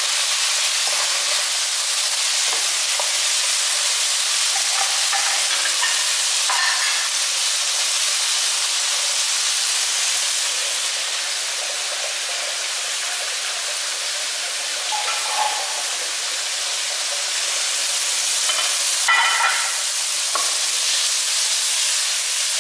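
Sliced cucumber, carrot and tomato sizzling steadily in a frying pan, stirred now and then with a few brief sounds of tossing.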